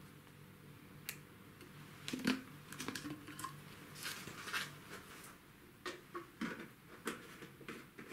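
Clothing rustling, with small clicks and taps from objects handled close by, in irregular strokes.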